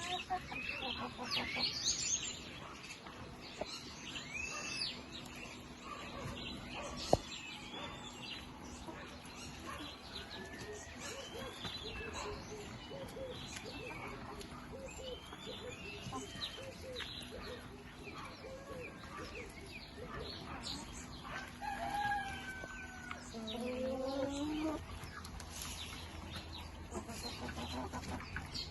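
Flock of chickens clucking, with many short high chirps throughout. A rooster crows about 23 seconds in. A single sharp knock about 7 seconds in.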